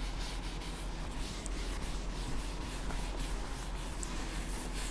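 Cloth duster rubbing across a chalkboard, wiping off chalk writing in a steady run of strokes.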